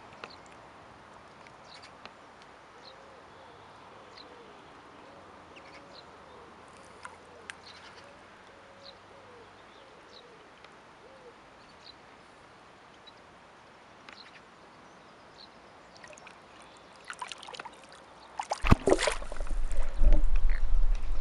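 Birds calling: low, wavering calls repeated over several seconds and scattered short high chirps, over faint steady background noise. About two and a half seconds before the end, loud rumbling, buffeting noise takes over.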